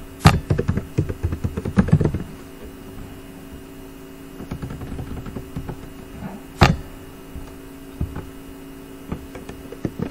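Computer keyboard typing: a quick run of key presses in the first two seconds, then scattered single keystrokes with one sharp click about six and a half seconds in, over a steady hum.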